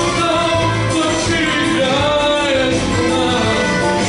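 A man singing a pop song into a microphone, his voice amplified through speakers over an instrumental backing track; his sustained notes glide up and down in pitch.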